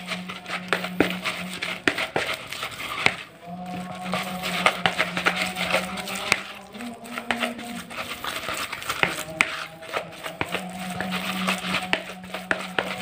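Hand mixing and squeezing a crumbly grated fish-bait mix in a plastic bowl: scratchy rustling and light irregular clicks. A steady low hum comes and goes underneath.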